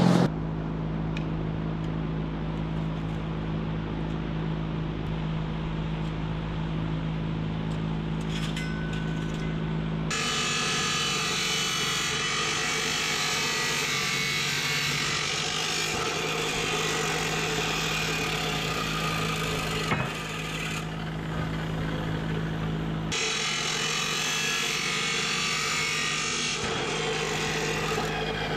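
A steady low hum for about ten seconds, then a DeWalt abrasive chop saw cutting steel bar stock: a harsh, dense grinding hiss through most of the rest, easing briefly a few seconds before the end.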